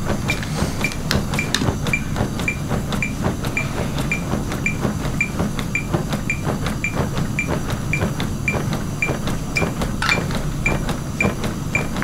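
CPR metronome beeping at an even pace of about two beeps a second, the rate for chest compressions, with the soft regular clicks of compressions on a CPR training manikin.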